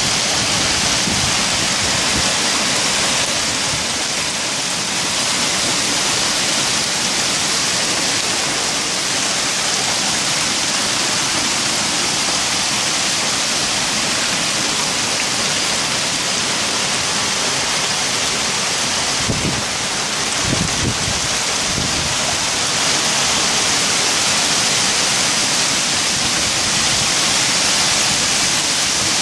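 Heavy hailstorm: hail falling on the street, pavement and parked cars, making a dense, steady hiss with no letup.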